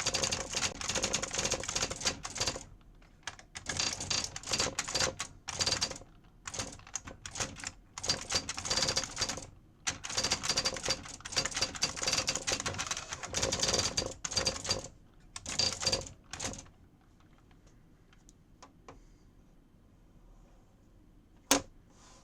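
IBM Wheelwriter 30 daisy-wheel electronic typewriter striking characters in rapid runs of clicking with brief pauses between them. It stops about 17 s in, and a single sharp click comes near the end.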